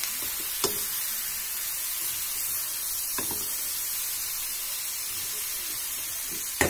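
Carrots, tomatoes and green chilies sizzling steadily as they fry in an aluminium pan, while a wooden spatula stirs them and knocks against the pan a few times, twice singly and then in a quick run near the end.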